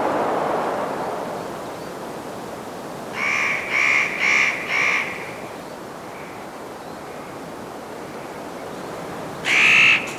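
A crow cawing: a quick series of four harsh caws about three seconds in, and two more near the end. Under them a gust of mountain wind dies away at the start and leaves a steady hiss.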